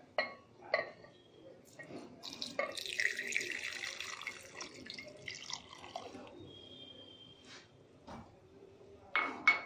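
Hot milk poured from a steel pan into a mixer-grinder jar, splashing steadily for about four seconds. A few short knocks come before and after the pour, the loudest near the end.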